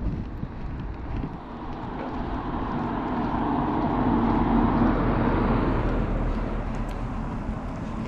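A vehicle passing by, growing louder to a peak about halfway through and then fading away.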